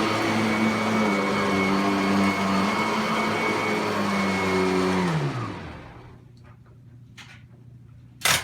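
Kirby Sentria upright vacuum running steadily with a whine, then switched off about five seconds in, its motor's pitch falling as it winds down. A single sharp knock near the end.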